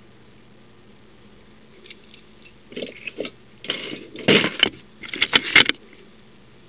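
Small metal hand tools clinking and rattling as they are handled: a few light clicks, then several loud bursts of metallic clatter about three to six seconds in, over a faint steady hum.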